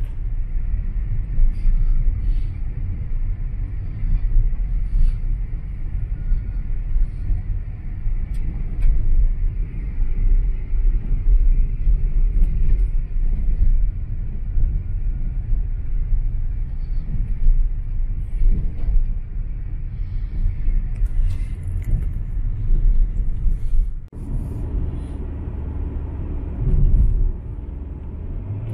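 Vehicle driving on a gravel dirt road, heard from inside the cab: a loud, continuous low rumble from the tyres on gravel, with scattered small clicks and rattles. About 24 s in it changes to a quieter, smoother hum of tyres on paved highway.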